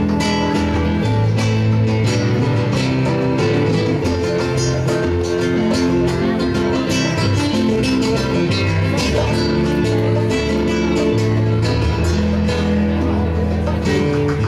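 Live Cuban-style band playing an instrumental passage: acoustic guitar over hand drums and a steady, sustained bass line.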